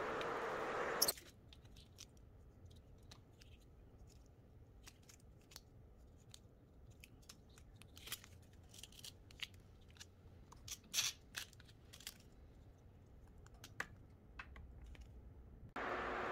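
A steady electric whir cuts off with a click about a second in. Then come scattered light clicks and plastic crackles as soak-off gel-removal clips are clamped onto the fingertips, a cluster of louder clicks near the middle. The whir starts again near the end.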